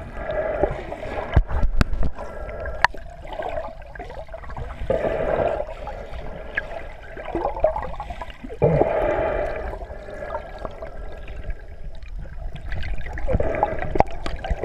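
Muffled underwater churning and bubbling from paddling swimming strokes, heard from a camera submerged in lake water. It comes in irregular surges every few seconds, with a few sharp clicks.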